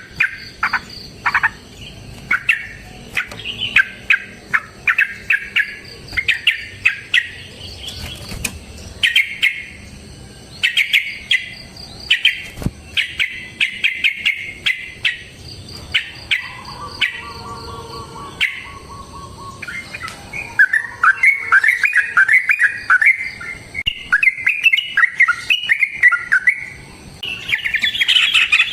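Yellow-vented bulbul singing: loud, short bubbling chirps repeated in quick phrases, turning into a rapid, dense chatter in the last part. A brief steady buzz sounds once in the middle.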